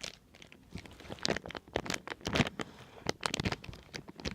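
Irregular crinkling and crackling of packaging or wrapping being handled, with short sharp rustles coming thick and fast.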